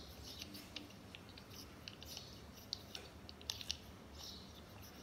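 Scissors cutting paper: a string of irregular short snips, heard through a tablet's speaker.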